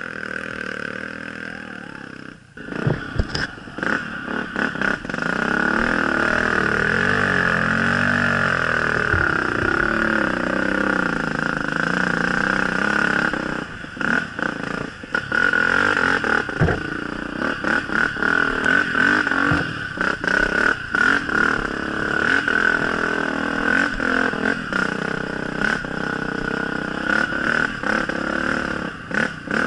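Dirt bike engine on a muddy trail, revving up and down as the throttle is worked, with repeated clatter and knocks from the bike over rough ground.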